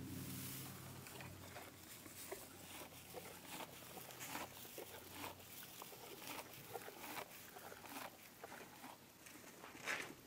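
Faint, scattered small clicks and patter of a shih tzu puppy and a ferret moving and nosing about on carpet among dry kibble. A low added growl sound effect fades out about a second in.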